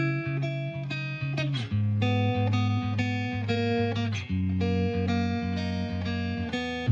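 Background music: a plucked guitar melody over a bass line, note after note at a steady pace.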